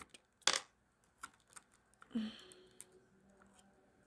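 Small, sharp clicks and taps from the small parts of a ratcheting screwdriver being handled and fitted by hand, a handful of separate clicks with the strongest about half a second in.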